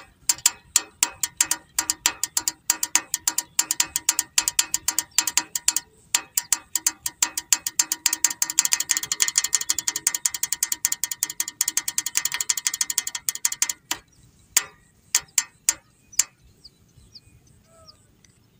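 Toy car's pull-back motor ratcheting as the car is rolled back and forth under a finger: a string of sharp clicks that crowds into a fast, dense run, breaks off about 14 seconds in, and is followed by a few scattered clicks.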